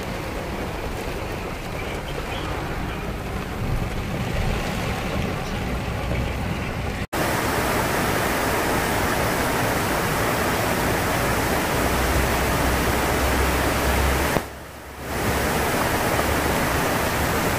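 Heavy rain and road noise heard from inside a moving car; then, after a cut about seven seconds in, a rain-swollen muddy stream in flood, rushing and cascading over rocks, steady and loud, with a short drop-out near the end.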